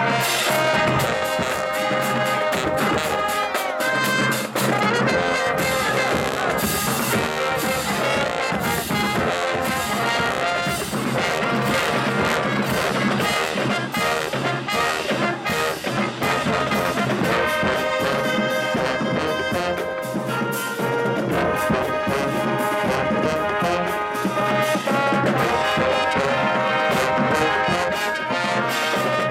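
Marching band playing: brass with trumpets and trombones carrying the tune over a busy drumline beat.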